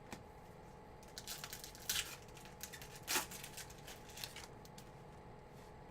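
Trading cards being handled and flipped through by hand, with several short papery swishes and scrapes as cards slide off one another.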